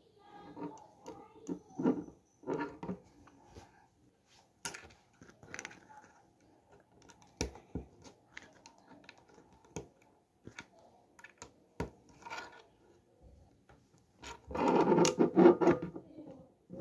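Plastic Lego bricks clicking and scraping as they are handled and pressed together by hand, in scattered sharp clicks, with a louder stretch of handling noise near the end.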